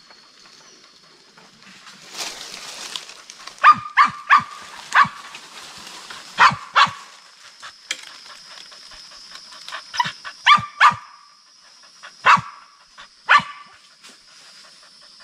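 A dog barking in sharp single barks, in bunches of two or three, about eleven in all, at an animal that has gone up a tree.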